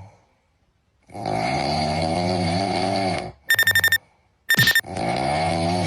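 Cartoon-style snoring sound effect: a long snore, a quick run of high whistling pips, then a second long snore.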